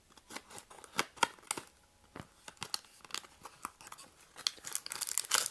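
Sturdy plastic blind-bag wrapper being cut open with scissors: scattered snips and clicks with the plastic crinkling, getting busier near the end.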